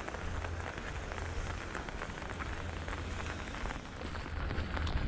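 Rain falling on an umbrella held overhead: many small drop hits over a steady low rumble.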